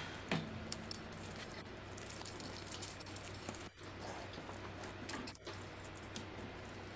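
Scattered faint clicks and small rustles over a steady low hum and high hiss on an open microphone.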